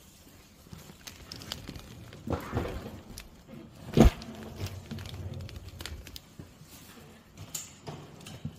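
Footsteps and handling knocks from a hand-held camera being carried through a small room, with one loud thump about four seconds in as the camera swings.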